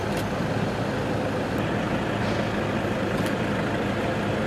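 Steady, dense background noise with a low hum and a few faint clicks.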